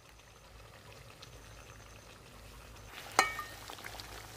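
Thick fish curry bubbling faintly in a metal karahi. About three seconds in, a metal spatula strikes the pan once with a sharp ringing clank, followed by stirring and light sizzling.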